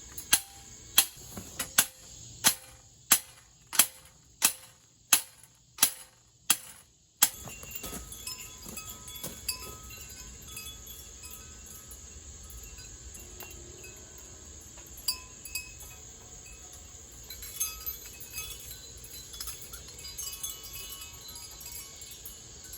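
About eleven sharp, evenly spaced knocks, roughly one every two-thirds of a second. Then, after an abrupt change, metal wind chimes tinkle lightly and irregularly over a steady hiss.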